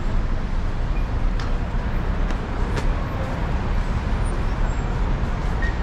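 Steady city street traffic noise, a low rumble of engines and tyres, with a few faint clicks.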